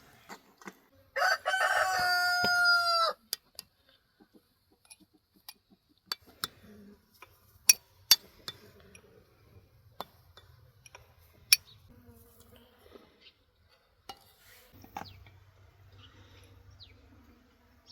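A rooster crowing once, one long call of about two seconds with a drop in pitch at the end. Scattered sharp clicks and knocks follow, two of them louder than the crow.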